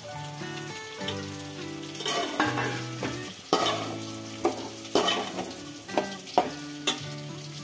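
Okra and potato sticks sizzling as they fry in hot mustard oil in a metal pot, while a metal spatula stirs them, scraping and knocking against the pot several times in the second half. Soft background music with held notes plays underneath.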